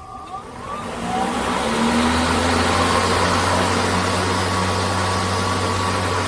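Greenworks 80V 25-inch brushless cordless lawn mower starting up: a rising whine as the motor and blades spin up over the first second or two, then a steady hum and whir at full speed.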